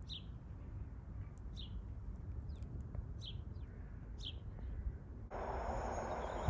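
A small bird gives four short chirps over a low background rumble. About five seconds in, the noise of a passing train comes in suddenly: a steady rushing with high whining tones.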